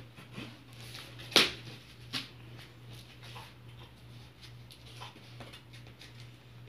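Cardboard shipping box being handled and worked at with a hand tool: a sharp knock about a second and a half in, a smaller one just after, then light scratching and ticking against the cardboard and tape. A low steady hum runs underneath.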